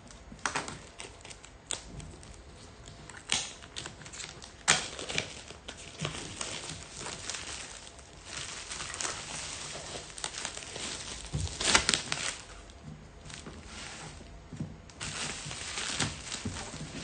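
Clear plastic shrink-wrap being torn and peeled off a cardboard product box: irregular crinkling and crackling with sharp snaps. The loudest snaps come about five seconds in and again around twelve seconds.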